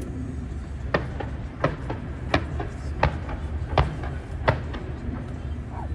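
Fireworks going off: six sharp bangs in an even run, about one every 0.7 seconds, over a steady low outdoor rumble.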